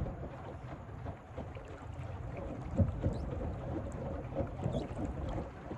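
Wind buffeting the microphone over water lapping against the hull of a small plastic boat under way, with a few irregular low knocks, the strongest about three seconds in.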